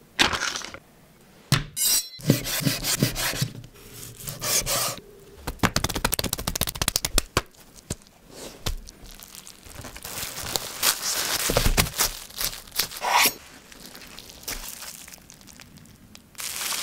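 Close-up sandwich-making sounds in short cuts: a plastic bag rustling, clicks, knocks and rubbing as roast beef and coleslaw are laid on bread with tongs, and a longer stretch of sawing about two-thirds of the way in, like a knife cutting through the sandwich.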